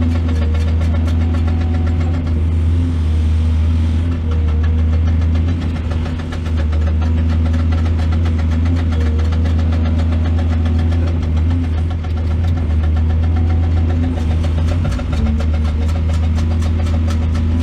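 Heavy diesel engine of an excavator running steadily at a low, even drone, with brief small dips in load.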